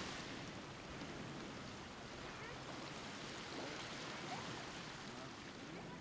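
East Sea surf washing on the beach: a steady hiss of broken waves running up and draining back, with faint distant voices.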